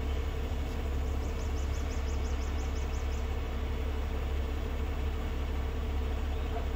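Peterbilt semi tractor's diesel engine idling steadily, deep and even. A quick run of about a dozen short, high chirps comes a second in and lasts about two seconds.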